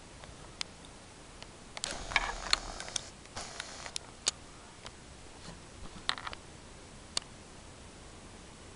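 Camera handling noise: scattered sharp clicks and a few short rustles as the handheld camera is moved, over a faint steady hiss.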